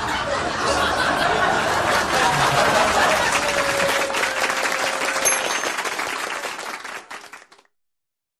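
A group clapping, with voices mixed in, fading out shortly before the end.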